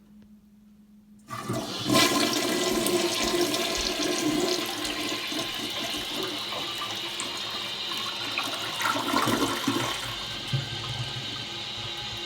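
A 2001 American Standard Plebe toilet flushing. A sudden rush of water starts a little over a second in and stays loud, then eases to a steadier, quieter hiss about ten seconds in.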